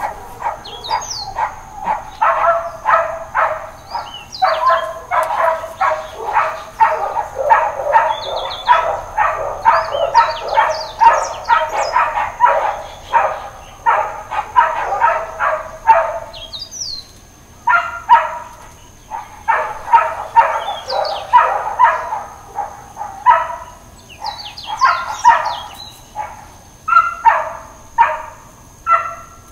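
Dogs barking over and over, a rapid run of about two or three barks a second, then a short break about halfway and more scattered barks. Birds chirp faintly over them.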